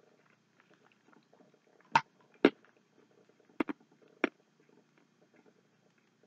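Faint mouth noises of someone chewing a chocolate bar close to the microphone, broken by five sharp clicks between about two and four and a half seconds in.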